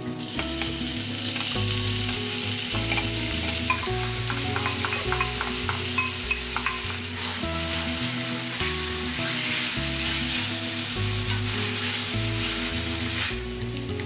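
Food sizzling and frying in a pan while it is stirred, with scattered light clicks in the first half. The sizzling stops suddenly near the end.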